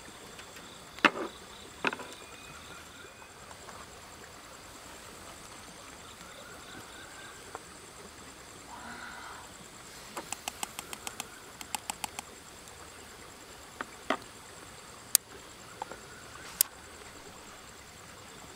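Scattered sharp clicks and a quick run of light ticks from cooking utensils being handled, over a faint outdoor background with a steady thin high-pitched whine.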